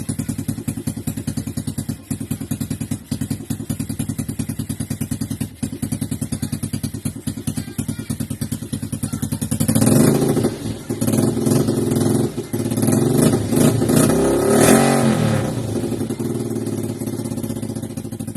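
Old motorcycle engine, just repaired, idling with a rapid even pulse, then revved up and down several times from about ten seconds in before settling back to idle.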